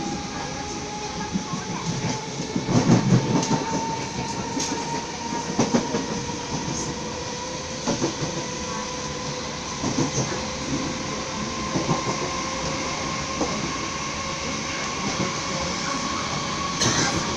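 Inside a Merseyrail electric train on the move: a steady rumble of wheels on the rails with irregular knocks over the track, the heaviest about three seconds in, and a motor whine that slowly rises in pitch as the train gathers speed.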